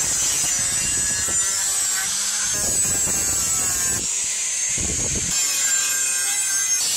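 Electric angle grinder with a thin abrasive cut-off disc cutting through rusty disc-plough steel: a steady, high-pitched whine with the rasp of the disc biting the metal.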